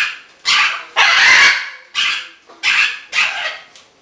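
Green-winged macaw giving a run of loud, harsh squawks, about six in quick succession, the third drawn out longer than the rest.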